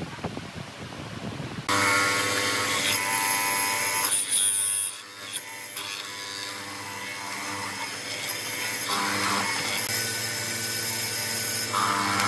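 Hollow-chisel mortising machine running, its motor giving a steady whine as the square chisel and auger bore a mortise into a wooden beam. It comes in abruptly a little under two seconds in and dips briefly about five seconds in.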